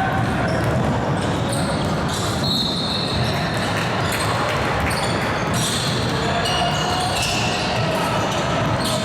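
Indoor basketball game: a ball bouncing on a gym floor and short high squeaks from shoes on the court, over steady chatter of voices that rings in the hall.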